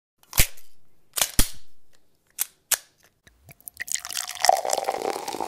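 Gunshot sound effects: one shot, then two in quick succession about a second later, each with an echoing tail. A few lighter clicks follow, then from about three and a half seconds in a dense crackle of small clicks.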